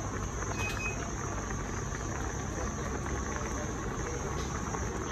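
Water boiling hard in a pot with tomatoes, onions and garlic in it: a steady bubbling hiss with many small pops.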